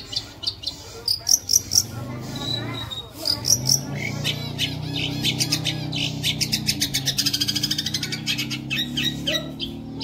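Long-tailed shrike (cendet) singing a varied song of short, sharp, high chirps, with a quick rattling run of notes about seven seconds in.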